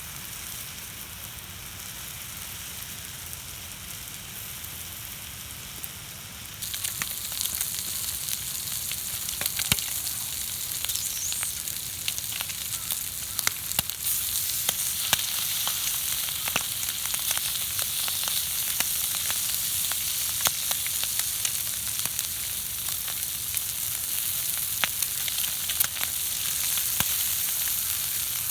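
Food sizzling and frying on a hot pan over a campfire, with many sharp pops and crackles. The sizzle gets suddenly louder about a quarter of the way in and again about halfway through.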